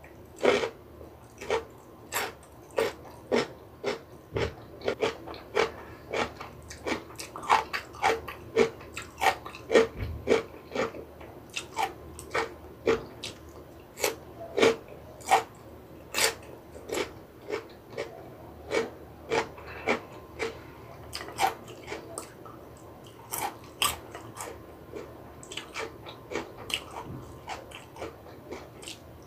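Close-miked chewing of crunchy kimchi, a steady run of crisp crunches about two a second with a short lull near the end.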